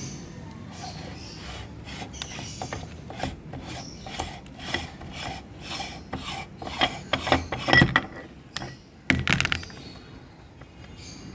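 Cast-aluminium hand meat grinder being taken apart: its threaded front ring rasps in a run of short twisting strokes, about three a second, as it is unscrewed with jelly in the threads. Then come two louder metal clanks as the ring and cutting plate come off.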